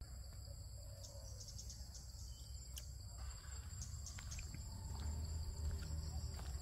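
Steady high-pitched chorus of insects, holding two unbroken pitches, over a low rumble that swells slightly about five seconds in.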